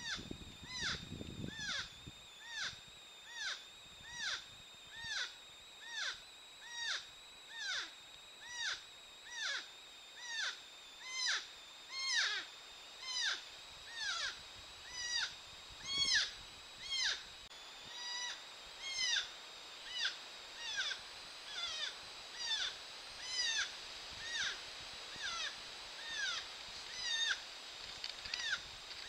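North American porcupine calling in a long, regular series of short, high whining cries, about one every three-quarters of a second, each rising and then falling in pitch; the uploader takes it for a female fending off a courting male.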